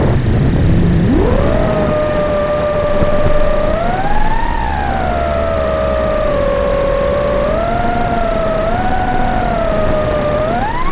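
FPV quadcopter's brushless motors and propellers whining, the pitch following the throttle: low at the start, climbing about a second in, wavering through level flight with a rise around four to five seconds, then climbing sharply near the end.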